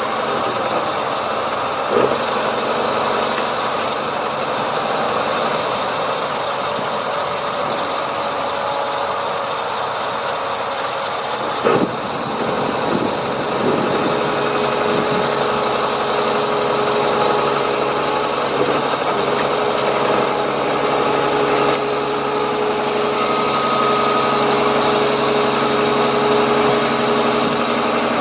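Heavy machinery diesel engines running steadily, with a couple of sharp metallic clanks, one about two seconds in and one near the middle.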